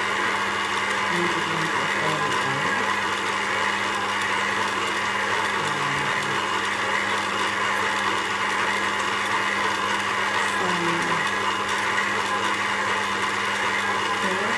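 Kenwood stand mixer running steadily, its motor humming evenly as it kneads brown bread dough in the stainless steel bowl.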